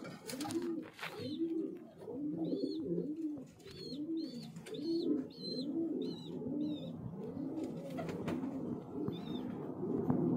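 Domestic pigeons cooing over and over, a steady run of low rounded coos close together, with short high chirps in the middle.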